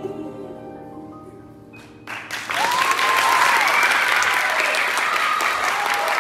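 The last held notes of the song's accompaniment fade out, then an audience breaks into loud applause about two seconds in, with some whistling.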